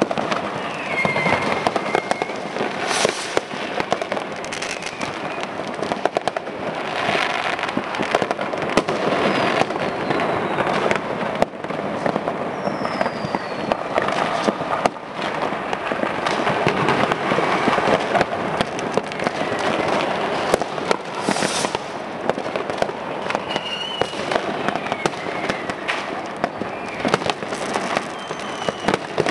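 Many consumer fireworks and firecrackers going off at once, a continuous crackle of bangs with a few louder cracks. Several short falling whistles cut through it.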